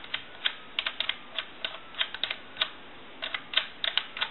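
Push-button keypad of a Mickey Mouse novelty telephone being pressed to dial out: an uneven run of short, sharp clicks.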